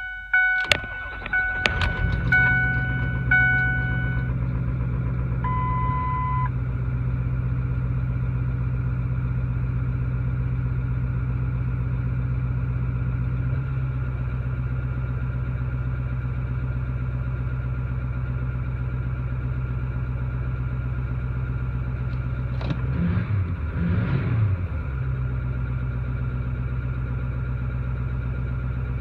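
Ford 6.4 Powerstroke V8 diesel started after a few dashboard chimes: it cranks and catches about two seconds in, then idles steadily, with a single beep a few seconds later. Around twenty-three seconds in the idle wavers and surges unevenly for about two seconds before settling, the kind of idle surge and miss the owner is chasing, with cylinder 3 contribution and misfire codes.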